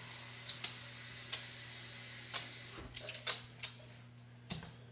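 Kitchen tap running water into an empty metal broth can, shut off about three seconds in with a low thump. After it come a few light clicks and knocks.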